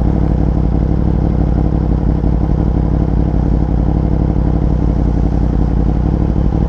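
Yamaha R1 sport bike's inline-four engine running at a steady engine speed while being ridden, with a heavy low rumble and no revving up or down.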